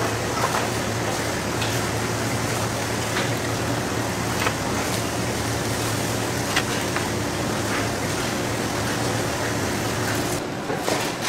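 Steady hum and hiss of running machinery, with a few faint sharp knocks scattered through it.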